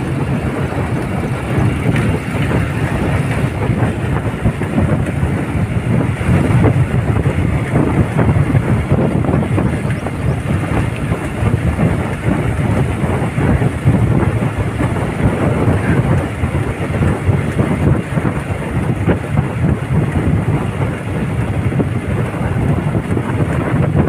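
Steady rumble and rush of wind and vehicle noise, picked up while moving along a road at riding speed.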